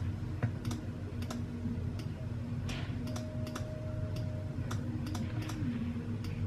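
Irregular clicks of a computer mouse and keyboard, about a dozen, over a steady low hum, as edges are selected and deleted in the 3D software.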